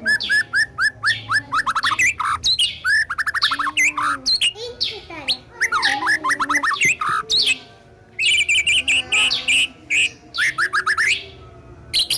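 A murai songbird singing a long, varied song: fast runs of repeated chirps, rising and falling whistles and trills, with short lulls about eight seconds in and again near the end.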